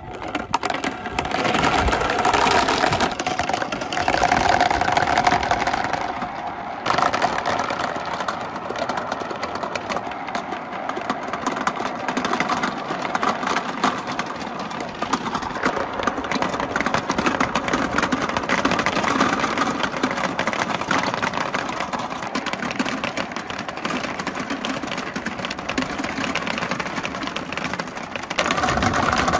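Many balls rolling and clattering through a handmade marble run, making a steady rolling rumble full of small clicks as they knock against each other and the track. They run down a plastic gutter, swirl around a large plastic funnel, and roll across a wooden board. The sound changes abruptly about seven seconds in and gets louder near the end.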